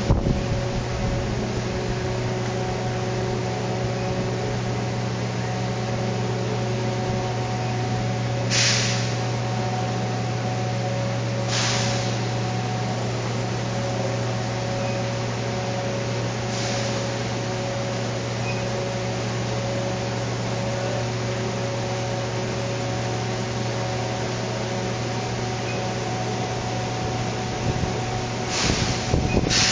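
Steady hum of an industrial rotary drum filter and its plant machinery running, with a strong low drone and a few higher steady tones. Several short bursts of hiss break in: two close together about a third of the way in, a fainter one after them, and another near the end.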